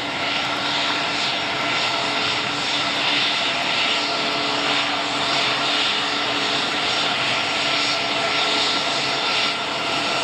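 The Embraer KC-390's twin IAE V2500 turbofan engines running at taxi power: a steady jet whine over a broad rushing noise, swelling a little in the first second as the aircraft comes closer.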